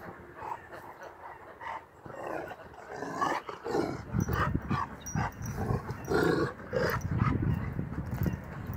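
Kangal shepherd dog growling and barking in irregular short bursts, louder from about two seconds in.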